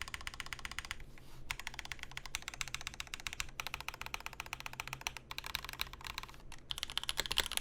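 Fast typing on a custom mechanical keyboard, a CAKE Proto plexiglass-cased board with lubed and filmed Raed switches and GMK keycaps. It gives a dense run of rapid keystroke clacks, with a short pause about a second in and a few brief breaks.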